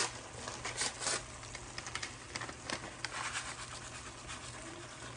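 Paper packet of dry onion soup mix rustling and crinkling as the mix is shaken out into a pot of beef tips in gravy, in scattered short rustles and light clicks, the most near the start and about a second in.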